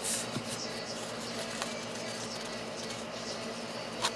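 Yu-Gi-Oh trading cards being handled: a short papery swish as a card slides at the start, a faint tick, then a sharp card flick about four seconds in, over a steady low room hum.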